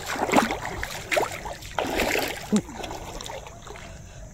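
Shallow muddy water sloshing and splashing as a person wades and gropes through it by hand, in a few uneven bursts that die down toward the end.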